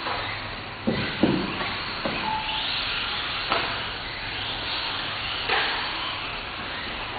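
Small electric 1/18-scale RC cars racing: a high motor whine that rises and falls as the cars pass. Two sharp knocks come about a second in.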